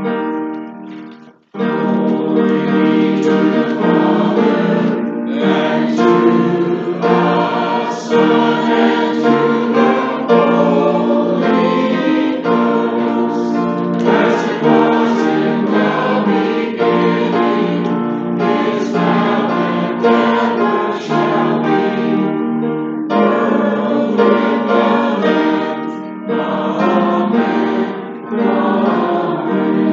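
A church congregation singing a hymn together with keyboard accompaniment, starting about a second and a half in.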